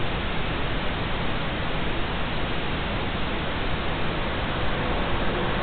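Steady static hiss: an even rushing noise with no tone or rhythm.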